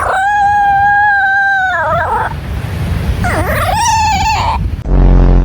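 A dog making two long, high-pitched howling whines. The first is held steady for almost two seconds, then wavers and falls. The second dips and then rises. They are followed near the end by a short, loud, low buzzing rasp.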